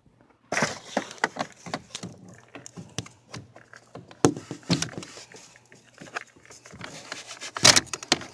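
Clicks, knocks and rattling from hands working the wiring connectors and loose trim inside a car door, with a louder knock near the end.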